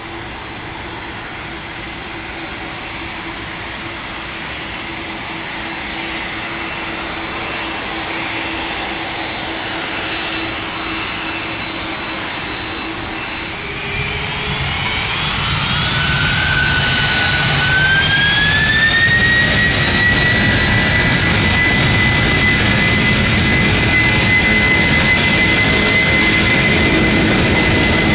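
Boeing 747-400F freighter's four jet engines whining steadily, then about halfway through spooling up with a rising whine and a growing deep rumble as thrust comes up for the departure.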